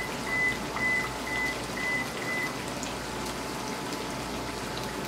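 Chicken curry masala bubbling in oil in a karahi, an even steady bubbling hiss. Over the first half, six short high electronic beeps sound about half a second apart.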